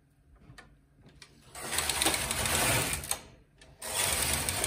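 Carriage of a Silver Reed SK840 knitting machine with SRP60N ribber pushed across the needle beds, knitting a row with a rattling swish. It makes two passes with a short pause between, after a few faint clicks at the start.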